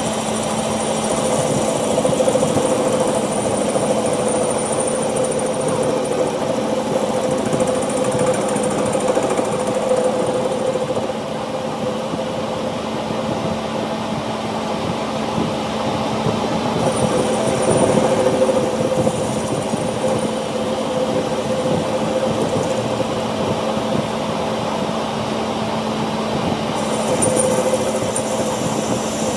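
Workshop machinery running steadily, a continuous mechanical drone with a thin high whine that stops for several seconds before midway and comes back.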